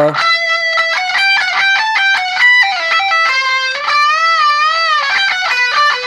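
Ibanez electric guitar strung with super-light 9–40 nickel-wound strings playing a single-note lead phrase: quick notes, then a long note bent up slowly with vibrato and let back down, then a few more quick notes.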